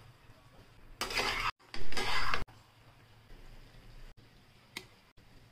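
A utensil scraping and stirring pasta in a metal frying pan, in two short bursts of scraping about a second in, with a light click near the end.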